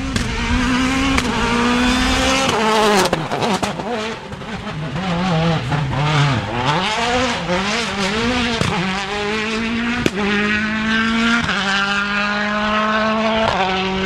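Citroën DS3 rally car's engine at full effort on a special stage. Its pitch rises, then drops and wavers through corners, and from about two thirds in it climbs again through repeated upshifts. Several sharp cracks from the exhaust and gearshifts break through it.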